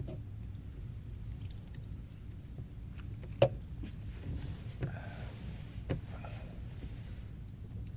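Room tone of a small interrogation room: a steady low hum with a few sharp clicks or knocks, the loudest about three and a half seconds in, with two smaller ones near five and six seconds.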